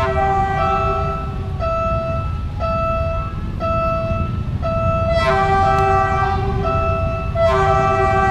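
Train horn blowing over the low rumble of a passing train: a blast near the start, then louder blasts starting sharply about five seconds in and again near the end. A two-tone warning signal alternates about once a second throughout.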